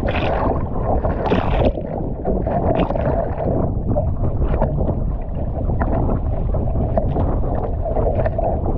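Strong wind rumbling on the microphone and choppy sea water sloshing against a kayak's hull, with louder splashes every so often as waves hit the boat.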